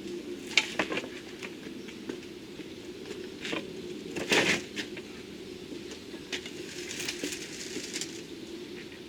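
Scraping, knocking and rattling as a heavy pool sand filter barrel is dragged across the ground. Scattered clicks and scrapes come throughout, with one louder crunching scrape about four seconds in, over a steady low hum.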